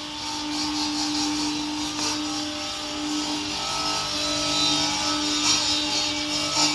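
CNC stone cutting machine running: a steady motor hum under a strong hiss, slowly growing louder.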